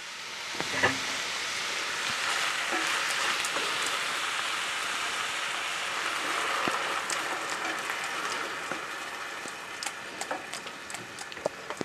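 Onions and tomatoes sizzling in hot oil in a stainless steel pan as water is poured in, a steady hiss that eases off near the end. A few sharp clicks of a wooden spatula against the pan come in the last couple of seconds.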